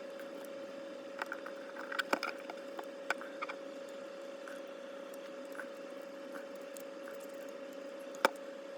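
Light clicks and taps from small parts of an HO-scale model locomotive chassis being handled and fitted, the sharpest click near the end, over a steady faint hum.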